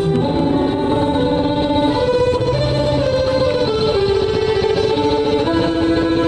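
Violin with a pickup cable, played through an amplifier: a slow melody of held notes stepping up and down, over an accompaniment with a low bass line.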